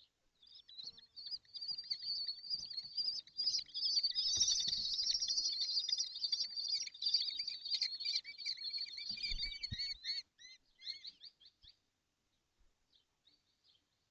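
Kestrel chicks calling in a rapid, continuous high-pitched chatter that breaks into separate repeated chirps about ten seconds in, then dies away to a few faint calls. A few dull thumps sound under the calling around the middle.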